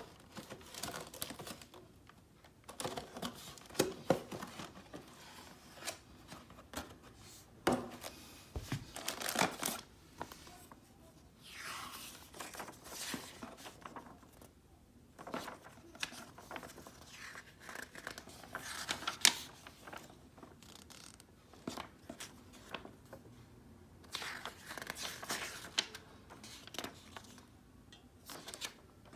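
A model kit's cardboard box and its paper instruction booklet being handled: pages turned one after another, giving irregular papery rustles and swishes, with a few sharp light knocks.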